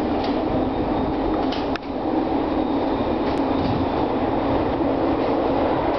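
Bombardier Mark I SkyTrain, a linear-induction-motor metro train, pulling into a station: a steady running rumble with a low hum, broken by one short click just under two seconds in.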